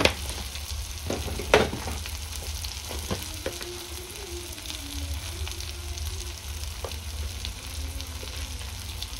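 Tomato-onion masala sizzling in oil in a pan on low gas while it is stirred. A few sharp knocks of the spoon against the pan stand out, the loudest about a second and a half in.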